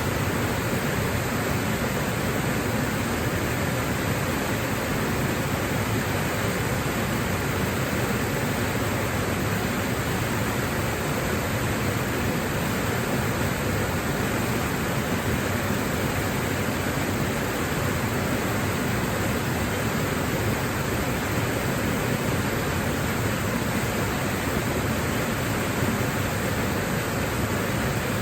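Waterfall rushing: a steady, even roar of falling water that doesn't change.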